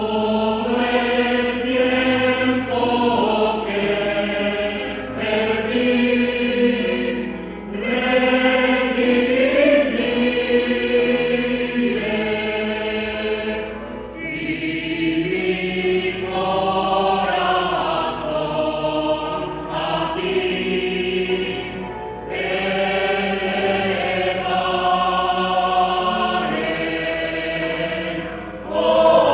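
Church choir singing in long held chords, phrase by phrase, with a short break between phrases every seven seconds or so. A steady low hum of an old recording runs underneath.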